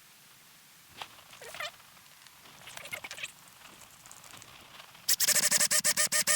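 A few short squeaks of a bit biting into small metal parts, then about a second and a half of a loud electric drill running with a rapid chatter before it stops. The drill is going through a small metal part of the old breaker-points assembly so its wire can be reused.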